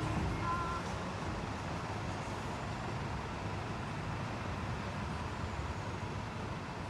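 Steady city street noise with the low rumble of idling vehicle engines, and a short high electronic-sounding tone about half a second in.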